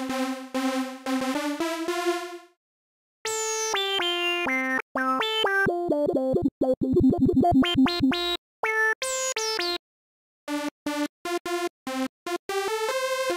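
Korg Polysix software synthesizer playing short phrases of bright lead notes, with a quick run of notes in the middle. It stops briefly twice as the next preset is loaded, so the tone changes between phrases.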